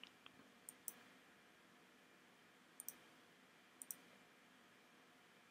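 Faint computer mouse clicks over near silence, with three close pairs of clicks spread a second or two apart.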